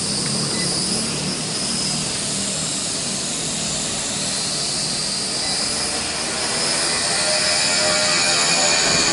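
Small RC quadcopter's electric motors and propellers buzzing steadily in flight, with a high whine. Near the end the buzz grows a little louder and takes on new tones.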